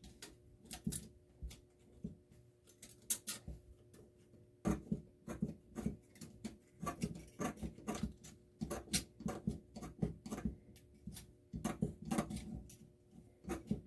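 Tin snips cutting lengthwise along a thin steel tape measure blade, a run of small irregular clicks and snips that grows busier partway through.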